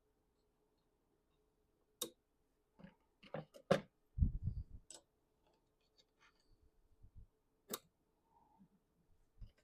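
Parts being handled and fitted together by hand: scattered sharp clicks and knocks, a quick run of them about three seconds in, followed by a brief low rumble, and single sharp clicks later on.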